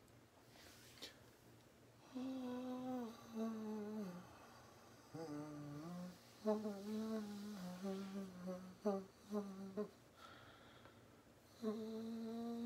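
A man humming a wordless tune in long held notes that step up and down in pitch. It starts after a short quiet moment and breaks off briefly before picking up again near the end.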